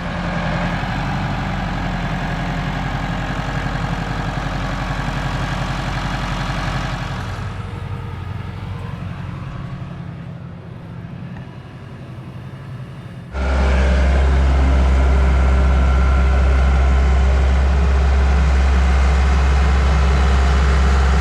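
A heavy vehicle engine running, fading away over several seconds; about 13 seconds in it gives way abruptly to a much louder engine idling steadily close by.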